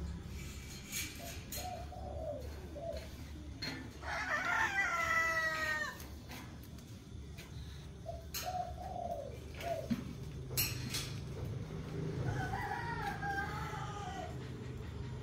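A rooster crowing: one long crow about four seconds in, and a second, fainter crow near the end. Shorter, lower bird calls come in between, over scattered light clicks and a low hum.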